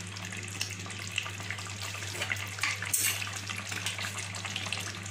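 Sukto, a milky Bengali vegetable curry, simmering in an open pan: soft bubbling with many small pops, over a steady low hum.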